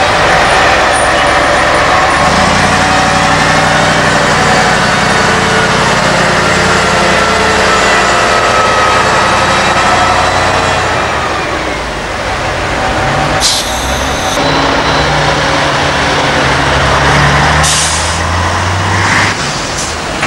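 Diesel engine of a Liebherr mobile crane truck running close by, its pitch rising and falling as it manoeuvres. A short air-brake hiss comes about two-thirds in, and a fainter one shortly after.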